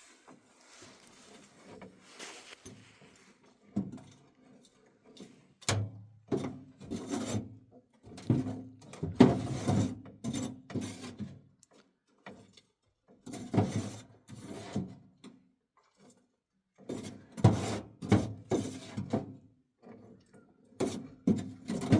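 Irregular knocking and clattering of hard objects being handled, in clusters of sharp knocks with short pauses between them.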